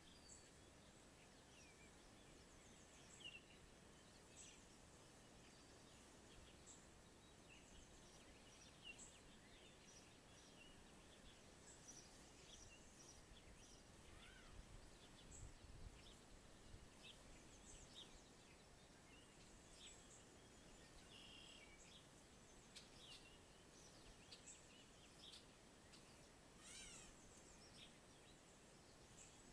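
Faint outdoor birdsong: many short chirps and whistled notes from several small birds, with a quick run of rising-and-falling notes near the end.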